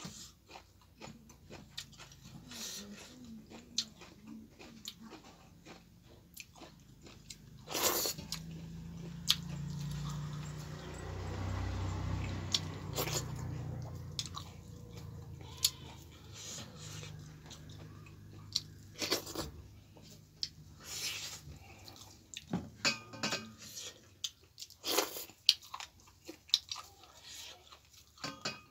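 Close-up eating sounds of chicken gizzard curry and finger-millet dhido being chewed and bitten, with many sharp wet mouth clicks and smacks. A low hum rises for a few seconds near the middle.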